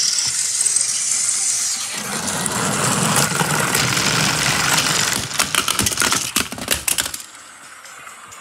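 Motorized toy train running on plastic track: a steady whirring rattle of its motor and wheels, which fills out about two seconds in, followed by a quick run of sharp clicks and knocks before the sound drops away near the end.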